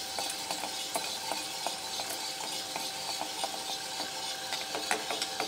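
Green coffee beans rattling in small scattered clicks as they are pushed from the chute into the turning drum of a Cormorant CR600 home coffee roaster, over the roaster's steady hiss and thin hum.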